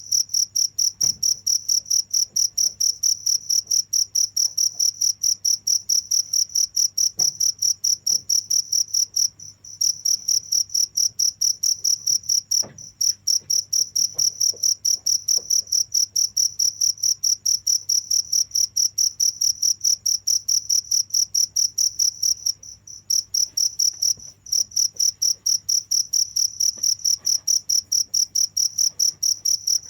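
A cricket chirping in a fast, steady pulse train with a high, pure ring. It breaks off briefly a few times before picking up again.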